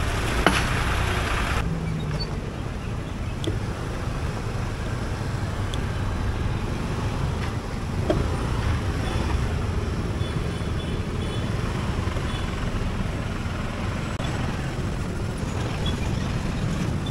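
Steady street traffic noise from cars, a lorry and motor scooters running close by in slow town traffic.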